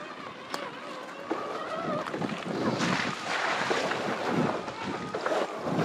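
Electric dirt bike riding over rough, wet ground: a thin motor whine that rises and falls in pitch with the throttle, over wind buffeting the microphone and the rumble of tyres on the track, a little louder about three seconds in.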